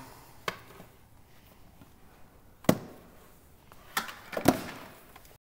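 Handling knocks from a solar charge controller and its cables being picked up and set down on a workbench: four short clunks and clicks, the louder ones in the second half. The sound cuts out completely just before the end.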